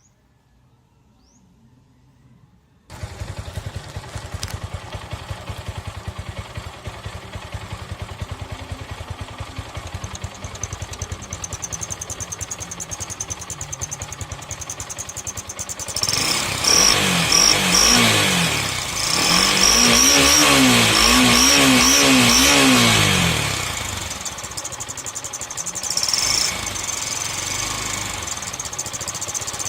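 Kawasaki Rouser NS150 motorcycle engine starting about three seconds in and idling, then revved in a series of short blips, each rising and falling in pitch, with a high whistle from a turbo whistler at the exhaust pipe sounding over the revs. It settles back to idle and is revved once more near the end.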